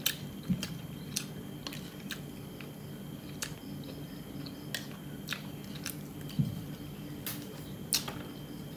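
Eating chicken soup: irregular sharp clicks of a spoon against the bowl, with chewing, over a steady low hum.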